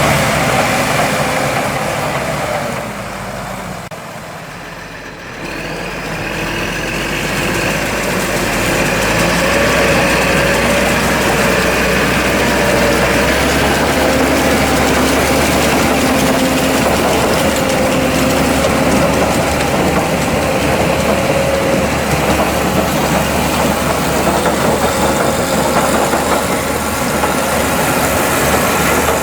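Large farm tractor diesel engines running steadily, with machinery whining over them; the sound drops briefly a few seconds in, then returns.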